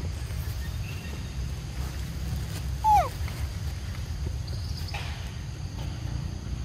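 A young macaque gives one short, clear whimpering call that falls in pitch, about three seconds in, over a steady low rumble.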